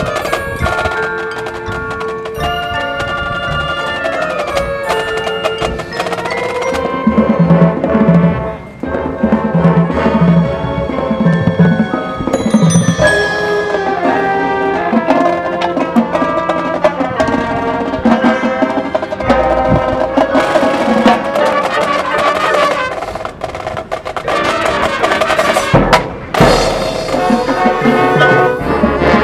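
Marching band playing its show music, with the front ensemble's mallet percussion (marimbas and bell-like keyboard notes) and drums prominent.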